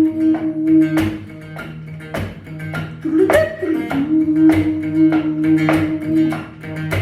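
Instrumental band music, led by guitar, over a steady beat with a hit about once a second and held low notes, without singing.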